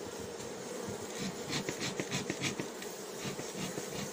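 Honeybees buzzing over an open hive, a steady hum from an aggressive, defensive colony. A few light ticks sound about a second in.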